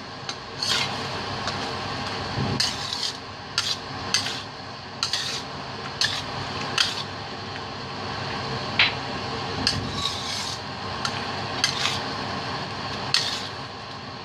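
A cooking utensil stirring a thick cream sauce in a stainless steel pan, scraping and clicking against the pan's side and bottom about once or twice a second over a steady hiss.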